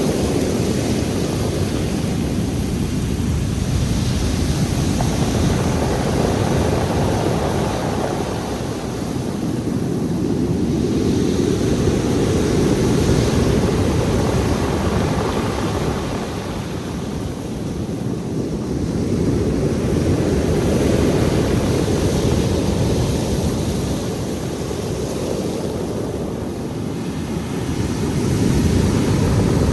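Black Sea surf: waves breaking and washing on the shore, a continuous rushing rumble that swells and eases about every eight to nine seconds.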